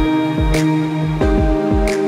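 Electronic background music: sustained chords over deep bass-drum hits that fall in pitch, with a sharp snare-like hit about half a second in and again near the end.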